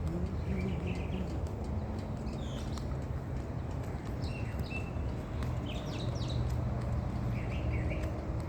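Several birds chirping, short high calls scattered throughout, over a steady low hum.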